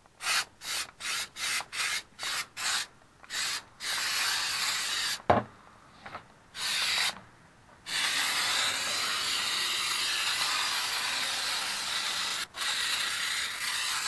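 Aerosol can of truck bed liner spraying: a quick run of short bursts, about two or three a second, for the first few seconds, then longer unbroken sprays, the last one lasting about six seconds. A single sharp knock about five seconds in.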